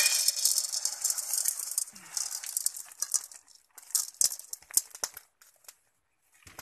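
Raw barako coffee beans poured from a tray into a hot metal wok at the start of pan-roasting. A loud rush of rattling beans on metal comes first, then it thins over a few seconds into scattered clicks as the last beans drop and settle. It dies away near the end.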